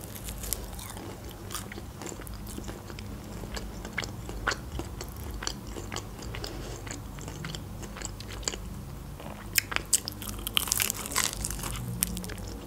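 Biting into and chewing crispy fried chicken wings: the breaded coating crunches in many short sharp crackles, with a burst of louder crunches about ten seconds in.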